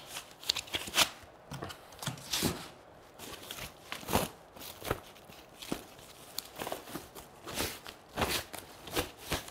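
Thin plastic packaging bag rustling and crinkling in irregular crackles as it is pulled off a projector, with foam packing blocks handled at the start.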